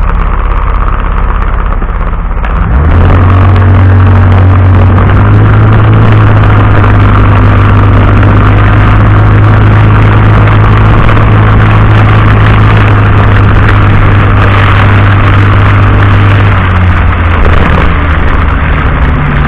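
Vehicle engine running at a steady pace, recorded through a dashcam's microphone, under dense hiss from heavy rain. Its hum steps up about three seconds in and eases down near the end.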